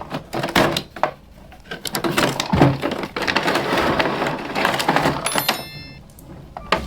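Small plastic dollhouse toy pieces clicking and tapping as they are handled, with a brief high ringing tone about five seconds in.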